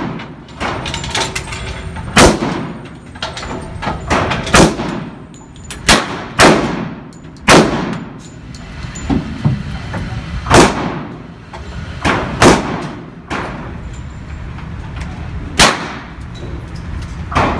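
Gunshots in an indoor shooting range: about a dozen sharp shots at uneven spacing, each followed by a ringing echo off the range walls.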